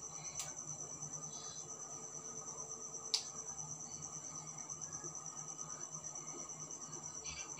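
Crickets chirping in a steady high trill, with a sharp click about three seconds in and a fainter click just before that, near the start.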